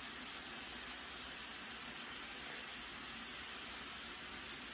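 A steady, even hiss with no other sound in it.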